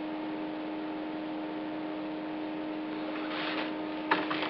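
Steady electrical hum with a constant low tone and an even hiss. Near the end comes a brief rustle, then a sharp click and a few softer taps.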